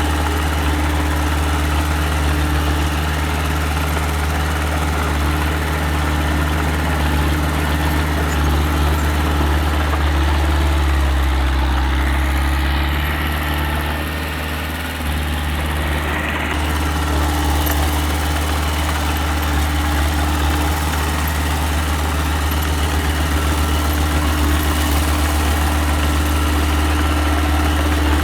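Engine of a small earthmoving machine (mini dump truck or small bulldozer) running steadily. Its note drops and softens about eleven seconds in, then picks back up about five seconds later.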